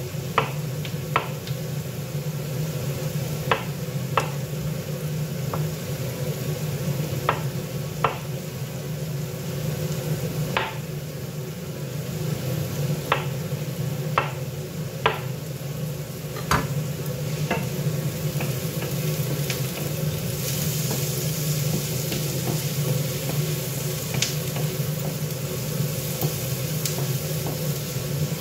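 A chef's knife slicing button mushrooms on a wooden cutting board: sharp knocks of the blade on the board at an uneven pace, over a steady hum. The knocks stop after about 17 seconds, and a steady hiss comes in near the end.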